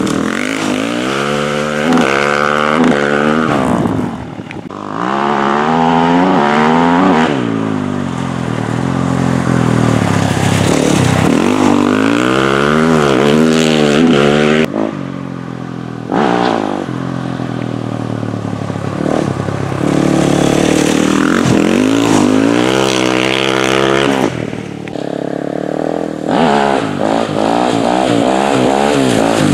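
Exhaust of a 2020 Husqvarna FE 450's single-cylinder four-stroke engine, fitted with an Akrapovic exhaust, accelerating hard over and over. The pitch climbs, drops back and climbs again in steps, as at gear changes, with brief lulls where the throttle is closed.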